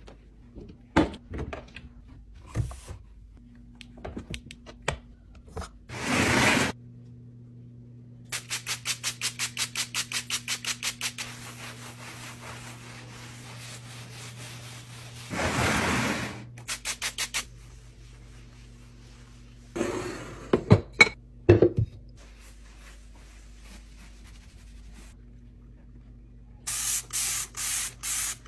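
Hand cleaning in a kitchen: a cloth wiping and rubbing a counter in a fast run of strokes, scattered taps and a few sharp knocks, and two short hissing bursts. Near the end, a sponge starts scrubbing a sink in rhythmic strokes. A low steady hum runs underneath.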